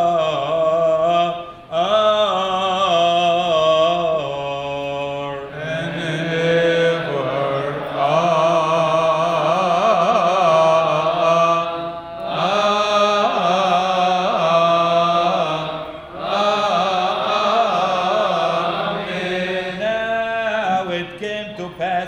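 A group of Coptic deacons and a priest chanting a liturgical hymn in unison. The long, drawn-out melodic phrases slide between notes, with short pauses for breath between phrases.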